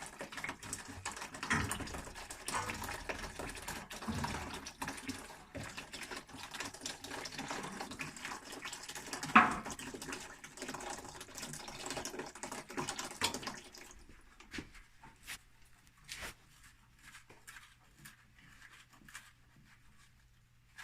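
Water running as the water heater tank is drained to lower its level, with scattered clicks and a sharp knock about nine seconds in. The flow stops about fourteen seconds in, leaving a faint steady low hum and occasional clicks.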